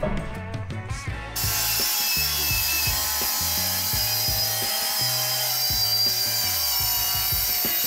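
Milwaukee M18 Fuel cordless circular saw starting up about a second and a half in and cutting steadily through a solid wood worktop, guided along a rail.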